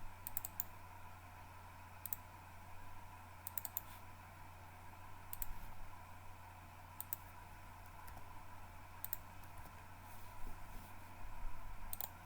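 Computer mouse clicking: sharp single and paired clicks every second or two, over a faint steady electrical hum.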